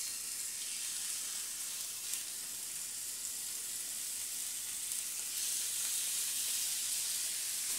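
Ram cutlets sizzling as they fry in a hot frying pan, a steady high hiss. The sizzle grows a little louder about five seconds in as a second cutlet goes into the pan.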